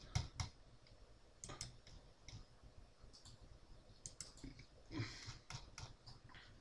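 Faint, irregular clicks of a computer mouse, a few at a time, as items in a software browser are clicked and opened.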